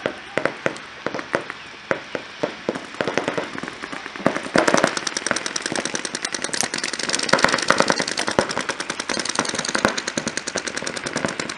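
Paintball markers firing: scattered shots at first, then dense rapid strings of shots from several markers at once from about four seconds in.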